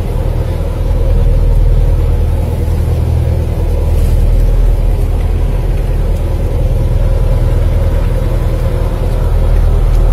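Boat engine running steadily, heard from on board as a low, even drone.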